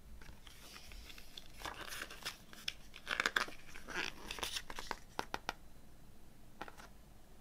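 Paper pages of a CD booklet being turned and handled: rustling with sharp little clicks and snaps, busiest in the middle and loudest about three seconds in, then a couple of light clicks near the end.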